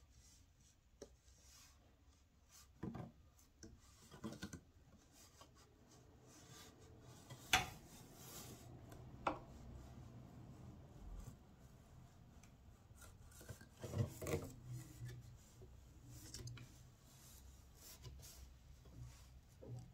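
Faint dry rubbing of a flat wooden pick-up stick and fingers against the wool warp threads of a floor loom as the threads are picked up and the stick is slid through. A few sharp wooden clicks and knocks break in, the loudest about seven and a half seconds in and a cluster near the fourteen-second mark.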